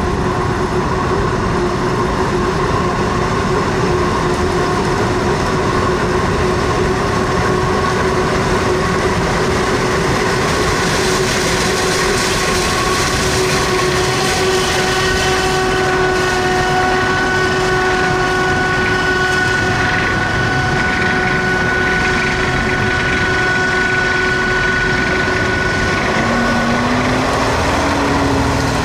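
Self-propelled Claas Jaguar 990 forage harvester running steadily under load while chopping maize, a dense mechanical drone with a steady high whine over it. Near the end a second, lower engine note rises in pitch.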